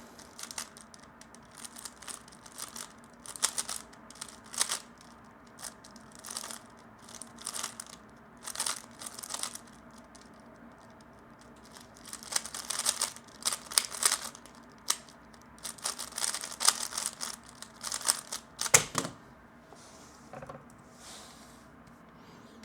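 3x3 speedcube being turned quickly: bursts of rapid plastic clacking and rattling, broken by short pauses, with one sharper knock near the end before it stops.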